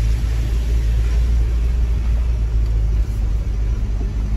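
A 4x4 vehicle driving on a dirt road: a steady, loud low rumble of engine and tyres.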